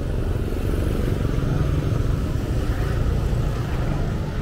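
A motor vehicle's engine rumbling close by in street traffic, swelling through the middle and easing off near the end.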